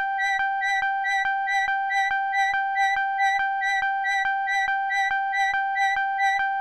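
Synthesizer holding one steady high note, with short regular clicks pulsing over it about three or four times a second.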